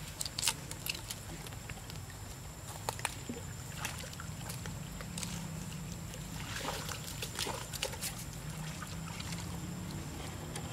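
Pool water sloshing and splashing as a young macaque swims, with scattered short splashes, over a steady low hum.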